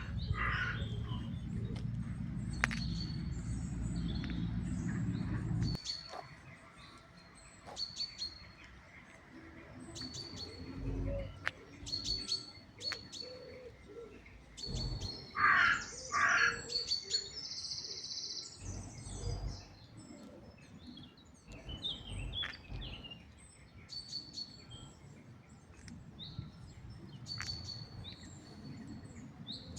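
Wild birds chirping: short high chirps repeating every second or two, with a few louder, harsher calls about halfway through. A low steady rumble runs under the first six seconds and cuts off suddenly.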